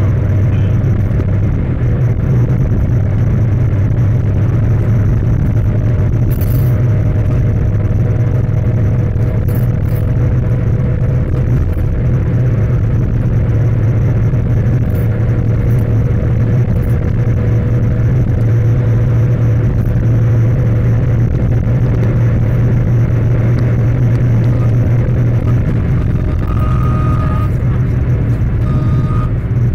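Maruti Wagon R Stingray's engine and road noise heard inside the cabin at a steady highway cruise of about 120–140 km/h: a constant low drone. A brief high tone sounds twice near the end.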